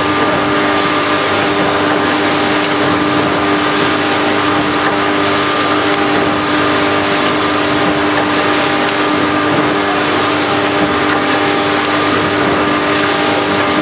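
Back-seal vertical packing machine running: a steady motor hum with a hiss that swells and drops in a regular cycle about every second and a half, one cycle for each bag formed, filled and sealed.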